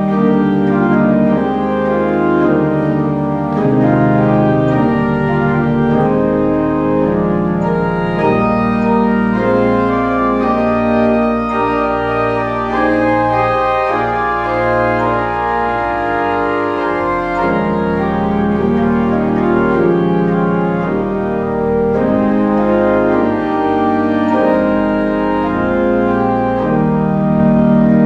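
Church organ playing music: held chords in many voices over sustained low pedal notes, loud and steady throughout.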